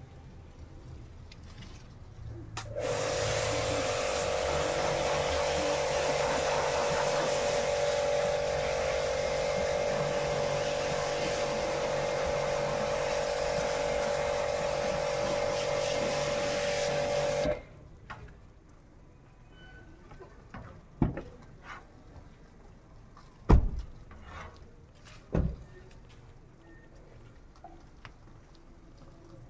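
Compressed-air blow gun hissing steadily with a whistling tone as it blows out a car's interior, starting sharply a few seconds in and cutting off abruptly after about fifteen seconds. Then three dull thumps a couple of seconds apart, the middle one the loudest.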